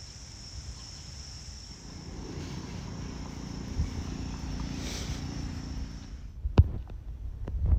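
Insects chirring in a steady high drone over a low rumble; the drone cuts off suddenly about six seconds in, followed by a single sharp click.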